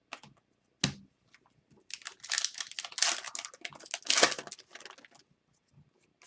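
Trading cards being handled and slid against each other: a click at the start and a sharper one about a second in, then about three seconds of dry rustling and scraping.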